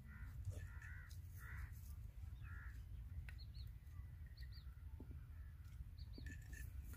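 Crows cawing faintly, a few short caws in the first three seconds and more near the end, with a few brief high chirps from small birds.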